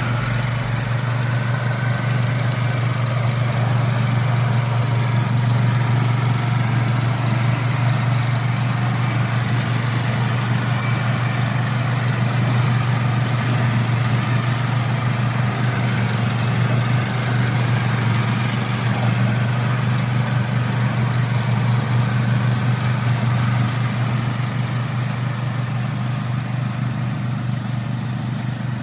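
Crawler slope mower's 764 cc Loncin engine running steadily with a low, even hum, easing slightly in the last few seconds.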